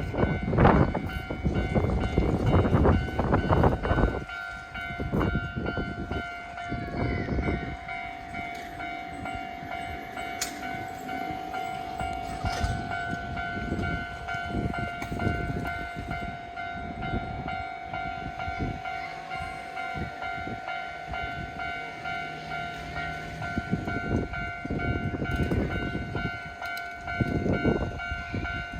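A train passing a railway level crossing, its wheels loud for the first four seconds and again near the end, quieter in between. A level-crossing warning bell rings steadily throughout.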